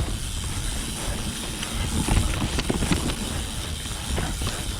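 Full-suspension mountain bike (2020 Orbea Occam H30) riding fast down a dirt trail: steady rumble of tyres and wind, with frequent small knocks and rattles from the bike over bumps.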